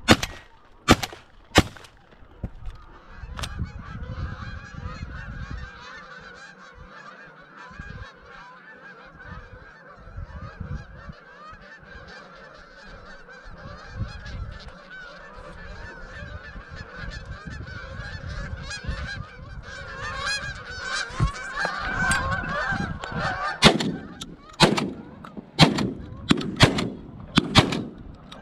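A large flock of geese honking and calling continuously. Sharp shotgun shots ring out in the first few seconds, and a quick string of shots in the last five seconds is the loudest sound.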